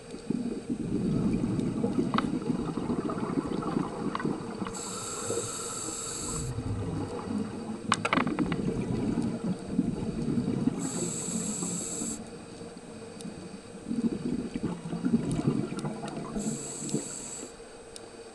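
Scuba diver breathing through a regulator underwater: long bubbling exhales alternate with short hissing inhales, three breaths about six seconds apart.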